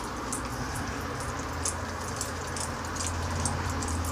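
Rain falling: scattered ticks of drops over a steady hiss, with a low steady rumble underneath that swells slightly near the end.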